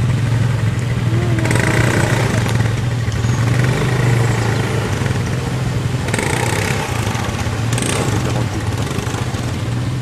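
Quad bike (ATV) engines running steadily while the quads wade through a shallow river, with bursts of water splashing around the wheels about a second and a half in and again around six to eight seconds in.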